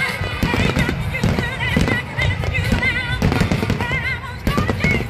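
Fireworks bursting and crackling in quick succession under loud music, whose high melody wavers up and down.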